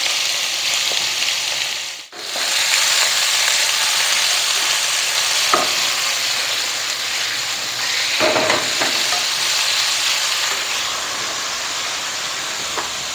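Chicken pieces and chopped garlic sizzling steadily in hot oil in a non-stick wok as they are stirred with a wooden spatula, with a few short scrapes of the spatula against the pan. The sizzle breaks off for a moment about two seconds in.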